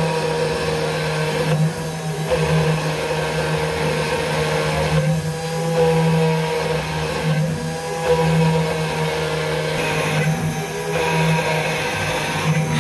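CNC stone engraver's spindle motor running steadily while its bit cuts into a granite slab, with a constant hum and a high whine. The sound changes every two to three seconds as the tool moves between cuts.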